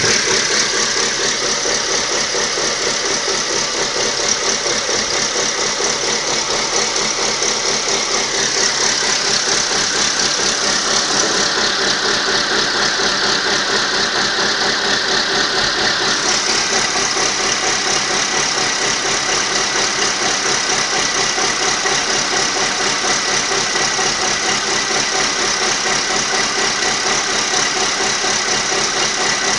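Ford Focus 2's 1.6-litre four-cylinder petrol engine idling steadily, its sound shifting slightly about nine and sixteen seconds in. It is a worn engine, due for a major overhaul.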